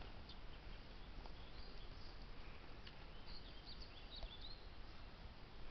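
Faint garden ambience: a steady low hiss and rumble, with a few faint high bird chirps in the middle.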